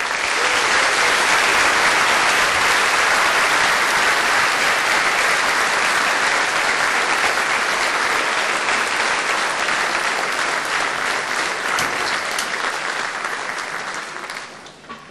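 Large audience applauding steadily, starting abruptly and tapering off near the end.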